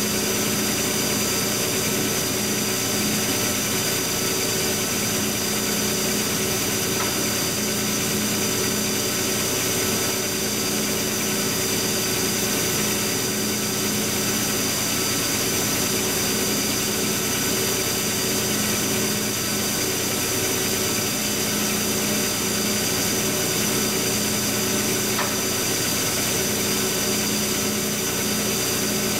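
Steady electric machine hum from the shop's rotary phase converter and the 40 hp Monarch lathe drive running, an even drone with fixed tones. A faint click sounds twice.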